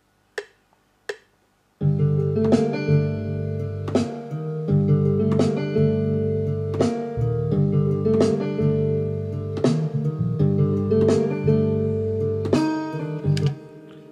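Two metronome count-in clicks, then a boom-bap beat plays back: a plucked-guitar loop from the FLEX synth plugin over low notes, with a snare hit on every second beat at 85 BPM. It stops about a second before the end and rings out briefly.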